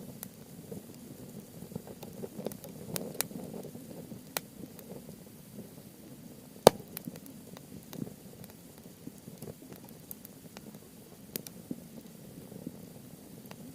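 Wood fire of softwood and hardwood logs burning: a low steady rush of flames with scattered sharp crackles and pops, the loudest pop a little before halfway through.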